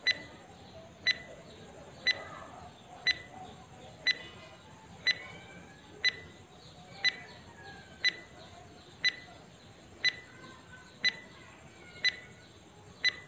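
Countdown timer sound effect: a short electronic beep once a second, fourteen in all, with faint birds chirping in the background.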